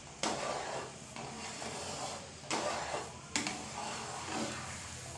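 Jaggery syrup bubbling and hissing as it boils in a pan, with a wooden spatula stirring and scraping through it a few times. The syrup is being cooked down toward the thread stage.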